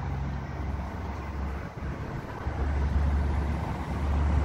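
Outdoor background noise: a steady low rumble under a soft, even hiss, the rumble growing stronger about halfway through.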